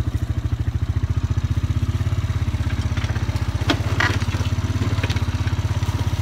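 Honda Foreman ATV's single-cylinder engine running steadily under way, a fast low putter, with a few sharp clicks and knocks about three to four seconds in.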